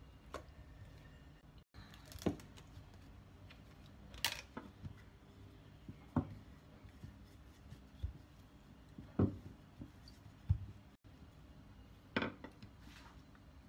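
Scattered light knocks and taps, eight or nine at irregular intervals of a second or two, from hands and a wooden rolling pin working bread dough on a silicone pastry mat, over a faint low background hum.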